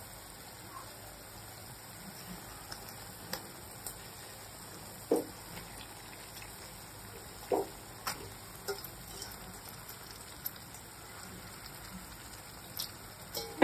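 Raw prawns frying in hot oily masala in a kadhai, a soft steady sizzle, with a few short knocks about five and eight seconds in.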